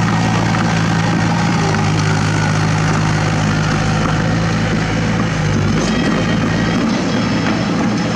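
Small crawler bulldozer's diesel engine running steadily as it pushes a load of dirt with its blade. The engine note changes a little before six seconds in.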